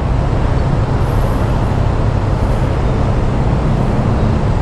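Motorcycle engine idling with a steady low rumble, under a haze of road traffic noise.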